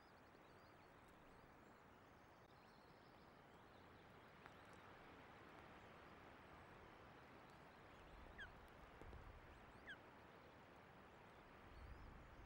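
Steady hiss of strong wind and rain on an osprey nest camera's microphone, with low buffeting from gusts later on. Two faint, short, high falling chirps from the ospreys come about eight and ten seconds in.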